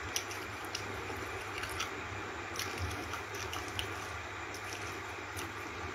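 Steady background hiss with a low hum, and faint clicks scattered at irregular moments.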